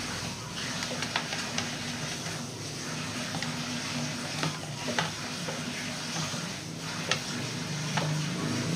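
Pancake batter sizzling in a frying pan, a steady hiss, with a few sharp clicks scattered through it.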